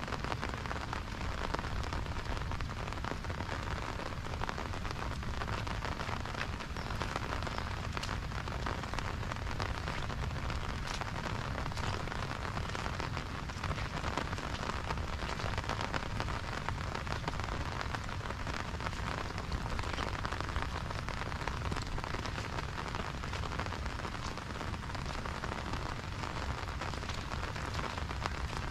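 Steady rain falling, a dense even hiss of drops with fine pattering.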